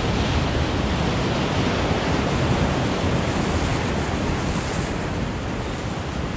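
Ocean surf breaking and washing around pier pilings, a steady rush of water.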